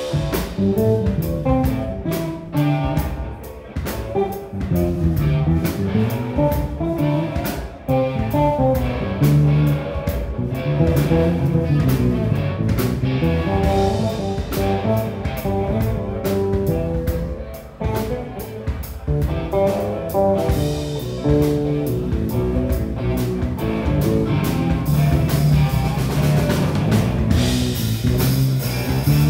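Live band music: an electric guitar plays lead lines over bass and drums.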